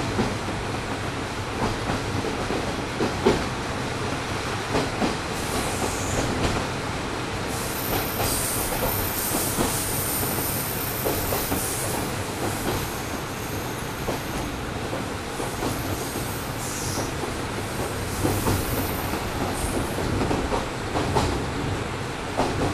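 KiHa 38 diesel railcar heard from inside the car, right above its DMF13HS diesel engine: the engine runs steadily under the floor while the wheels clack over the rail joints. A high-pitched wheel squeal comes in about five seconds in and again later on.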